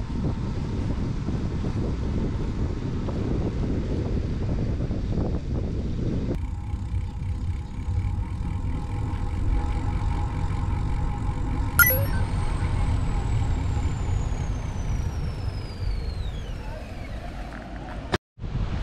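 Wind buffeting the microphone of a camera on a moving bicycle, with road and tyre noise. The noise changes abruptly about six seconds in. About two-thirds of the way through a sharp click is followed by a high tone that falls slowly over several seconds.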